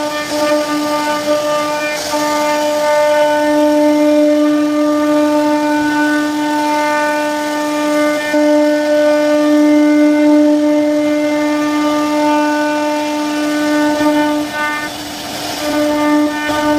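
CNC wood router spindle running under load as it carves a relief pattern into a wooden panel, giving a steady whine that briefly dips about fifteen seconds in.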